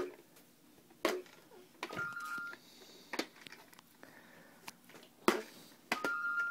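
Electronic baby toy giving a short two-tone beep twice, about four seconds apart, with a few sharp taps in between.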